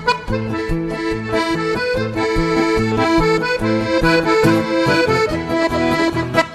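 Background music led by an accordion playing a lively tune over a steady bass beat.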